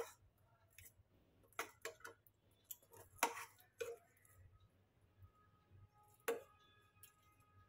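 Spoon knocking and scraping against an aluminium pan while scooping syrup-soaked fried bread pieces out of sugar syrup: scattered faint taps and clicks, the loudest a little past three seconds in. Near the end a sharper knock leaves the pan ringing briefly.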